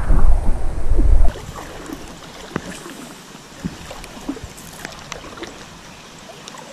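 A loud low rumble on the microphone for about the first second, then light rain on a river: a steady hiss with scattered, irregular ticks of drops on the water.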